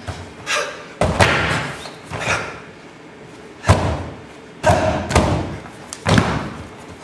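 A run of heavy thuds and slams, about eight at uneven intervals, the hardest about a second in and near the middle.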